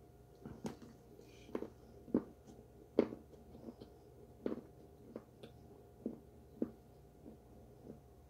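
Biting and chewing chunks of a cornstarch brick: irregular crunches, roughly one or two a second, the loudest about three seconds in.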